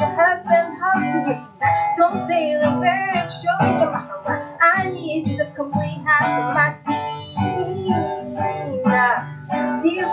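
A woman singing to her own acoustic guitar accompaniment, the melody wavering and gliding over steady plucked chords.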